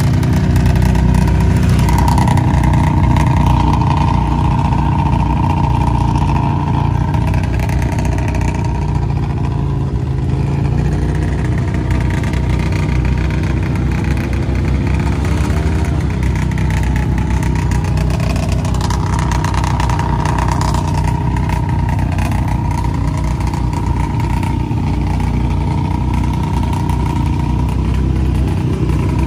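Vehicle engines running loudly and steadily, with a rev that rises and falls in pitch about halfway through.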